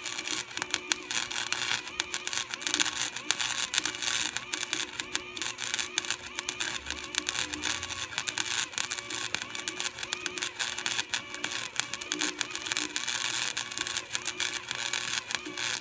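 Electric arc welding on a lawn roller's metal drum: a steady, dense crackle that runs on without a break.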